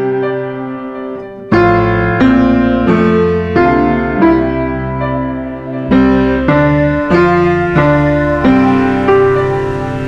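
Instrumental piano music: chords struck about every two-thirds of a second and left to ring, with deep bass notes coming in about one and a half seconds in.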